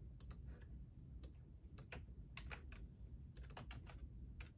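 Faint, irregular keystrokes on a computer keyboard, a dozen or so clicks coming singly and in quick little runs.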